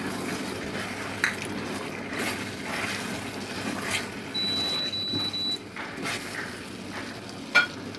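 Sauce sizzling in a nonstick pan as cornflour slurry is poured in and stirred through with a silicone spatula, the gravy starting to thicken. A few sharp taps of the spatula against the pan, the loudest near the end.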